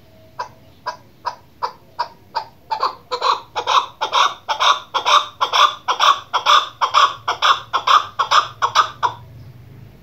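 Female chukar partridge calling: a run of short clucking 'chuk' notes, about two and a half a second. They start soft and clipped, then swell into louder, fuller notes a few seconds in, and stop shortly before the end.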